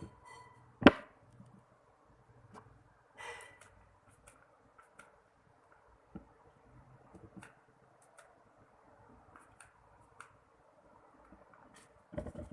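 Scattered small clicks, taps and brief rustles of hands handling packing materials, with one sharp knock about a second in and a few knocks near the end.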